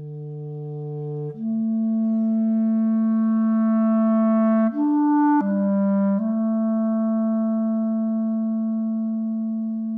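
Solo clarinet playing slow, long held notes one at a time. It starts on a low note, moves up to a note held for about three seconds, plays two short notes around the middle, then settles on a long note that slowly fades.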